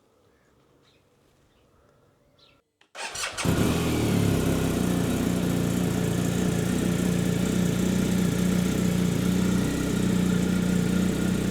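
BMW R1250 GS Adventure's boxer twin engine starting about three seconds in, catching at once and settling into a steady idle.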